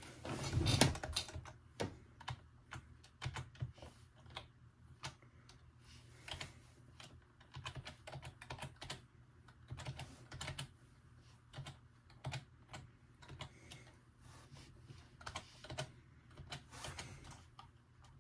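Typing on a computer keyboard: irregular runs of key clicks with short pauses, and one louder thump about a second in.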